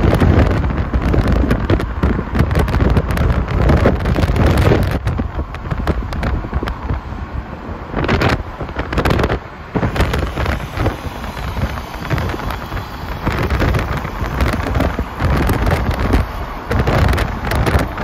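Wind buffeting the microphone of a moving car, rising and falling unevenly over the road noise of the car driving.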